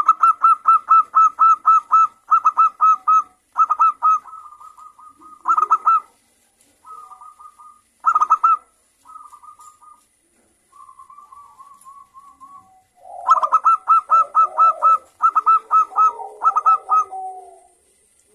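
Zebra doves (perkutut) calling: phrases of rapid, staccato cooing notes separated by short pauses, quieter in the middle. A lower, rougher second voice sounds under the calls about three-quarters of the way through.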